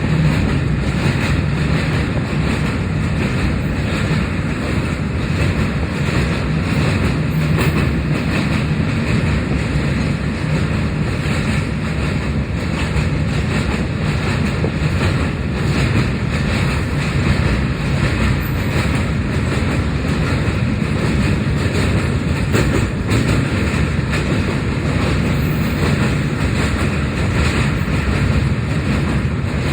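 Train crossing a bridge: a steady, loud, low rumble of wheels on the rails, with scattered faint clicks.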